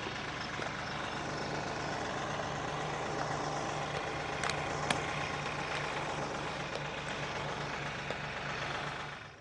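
Compact diesel tractor engine idling steadily, with two short sharp clicks about four and a half seconds in.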